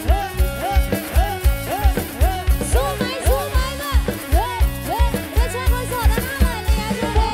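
Live band playing an upbeat Thai dance tune: drum kit with a steady kick at about two beats a second, with electric guitar and keyboard, under a lead melody of repeated rising-and-falling pitch bends.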